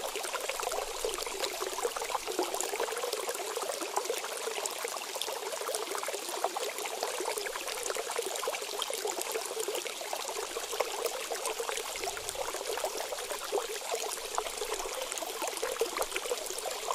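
Steady trickling of running water, like a small stream, even and unchanging.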